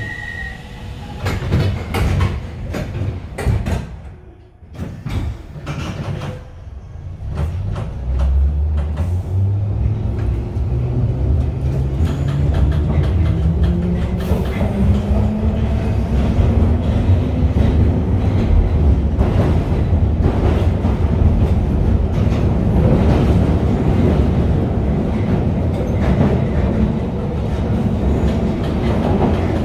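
1972 Mk 2 tube stock train pulling away, heard from inside the carriage. A door warning tone ends just as it starts, and a few knocks follow as the doors close. About seven seconds in, the traction motors start, and their hum rises in pitch for about ten seconds as the train accelerates, settling into a steady running rumble with wheel clatter in the tunnel.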